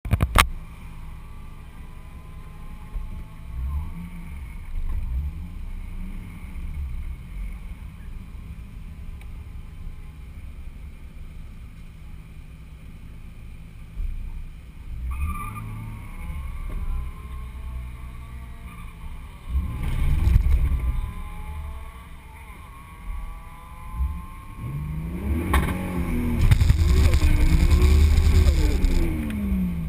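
Turbocharged Toyota Supra engine heard from inside the car, idling with short blips of revs every few seconds. Near the end it is held at higher revs for about three seconds, the pitch wavering up and down, before dropping back. A sharp knock sounds right at the start.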